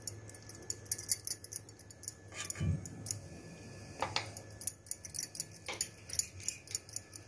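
Wooden spatula scraping and tapping against a steel cake tin while spreading a moist vegetable stuffing, with light metallic clinks from a steel plate touching the tin's rim: a quick run of small irregular clicks and scrapes, a few stronger knocks among them.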